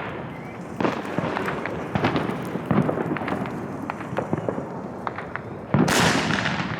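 Fireworks going off: a steady run of rapid crackling pops, then a sudden louder burst with a bright hissing crackle about six seconds in.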